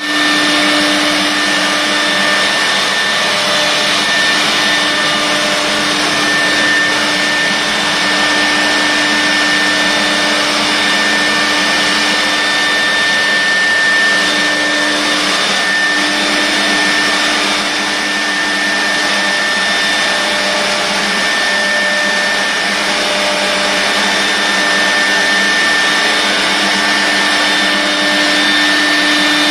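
CNC router spindle milling parallel grooves into an acoustic panel board, with the dust-extraction suction running: a loud, steady whine and rush, with a high tone that comes and goes.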